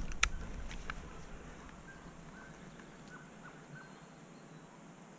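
A few clicks and one sharp knock in the first second, then faint, short, high squeaky chirps repeating, at times about two a second.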